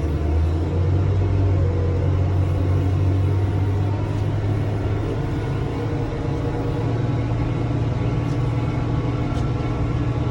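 A large engine running steadily with a low rumble, its pitch rising slightly in the second half.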